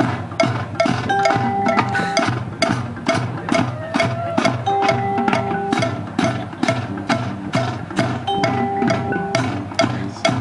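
Latin-style music with percussion: a fast, steady beat of sharp wood-block-like strikes, about three a second, under held melody notes and mallet percussion.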